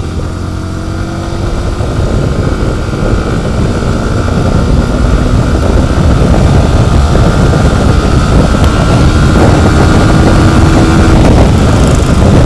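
Yamaha R15 V4 motorcycle on the move: engine and wind noise, getting steadily louder.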